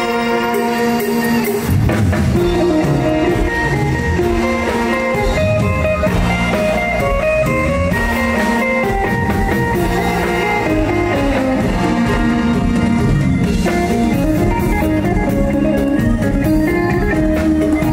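Band music with a steady beat, led by guitar over a drum kit.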